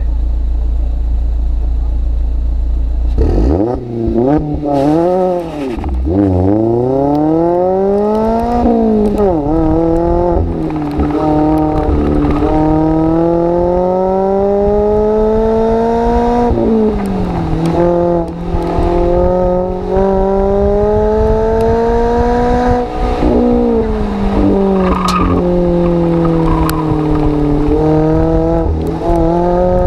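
Mazda MX-5 ND2's four-cylinder exhaust through a Goodwin Racing Roadsterport race muffler, heard from right under the car. A low steady rumble at first; then, about three seconds in, the engine revs up as the car pulls away. Its pitch climbs and drops sharply several times over the next ten seconds, then runs steadier with smaller rises and dips.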